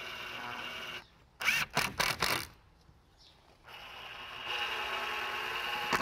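Drill/driver driving screws through a butt hinge into a pine door jamb. The motor runs steadily for about a second, a few short loud bursts follow, and then comes a second, longer run of the motor starting about four seconds in.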